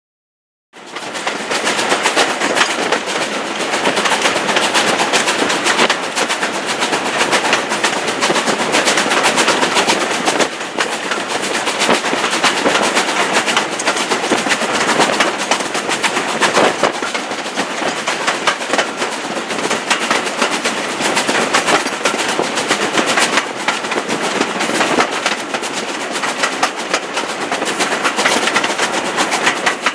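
Black Five steam locomotive 44806 working a train, heard from a carriage behind it: a fast run of sharp exhaust beats over steady running noise. It starts abruptly about a second in and stays loud.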